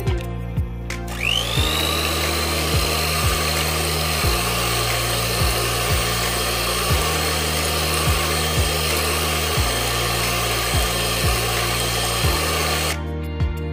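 Electric hand mixer beating batter: its motor starts about a second in with a whine that rises quickly as it spins up, runs steadily, then cuts off near the end. Background music plays underneath.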